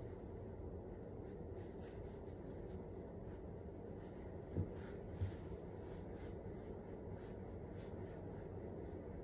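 Faint rubbing of fingertips over skin as cream is worked into the face, soft repeated scratchy strokes over a steady low room hum. Two brief soft thumps come about halfway through.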